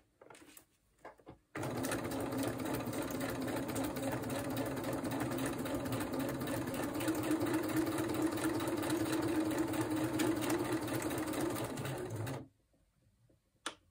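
Electric sewing machine sewing a slow straight stitch through paper onto a journal page: it starts about a second and a half in, runs steadily with a rapid, even run of needle strokes, and stops about a second and a half before the end.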